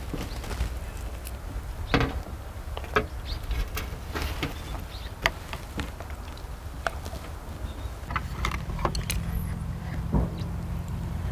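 Scattered sharp clicks and taps of a spoon and chopsticks against earthenware soup pots, over a steady low rumble; a low steady hum joins about eight seconds in.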